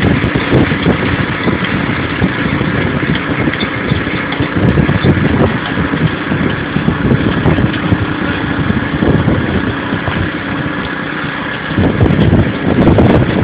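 Storm-force wind gusting against the microphone: a loud, rumbling rush that swells and eases, with the strongest surges near the end.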